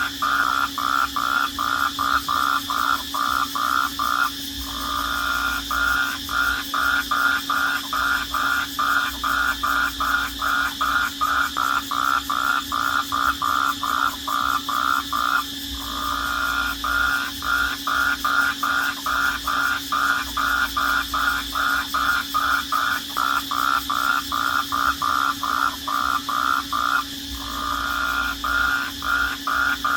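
Night-time animal chorus: a fast, even train of calling pulses, two to three a second, that pauses briefly three times, over a steady high drone.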